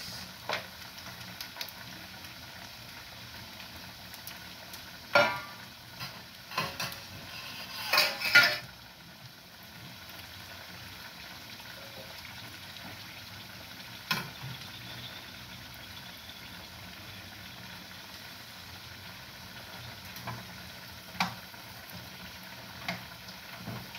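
Sausages sizzling in oil in a metal frying pan, with a few sharp metal clinks and knocks of a spoon and utensils against the pan as they are turned and arranged, the loudest about eight seconds in.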